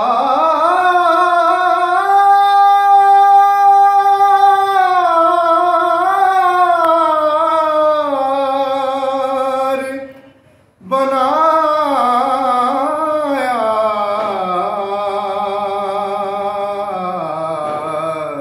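A man singing a naat solo with no instruments, in long drawn-out phrases whose pitch winds up and down. He holds one note steady about two seconds in, breaks off for a breath about ten seconds in, then starts a second phrase.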